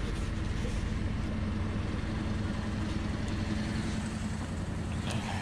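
Car engine idling steadily just after a cold start, following a night below freezing.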